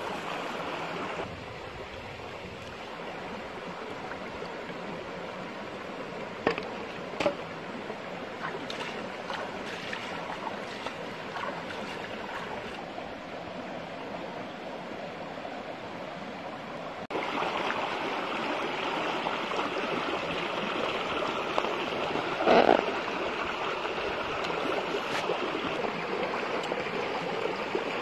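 A shallow stream running over rocks, a steady rushing that jumps louder suddenly a little past the middle. A few short clicks and knocks sound over it, the loudest about four-fifths of the way through.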